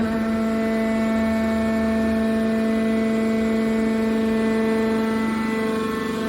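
Hydraulic scrap car baler's power unit running with a steady, even whining hum that holds one pitch throughout.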